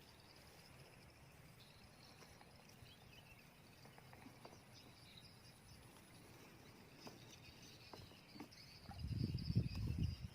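Faint insects chirping in the background, with a few small clicks. Near the end, a loud, uneven low rumble takes over.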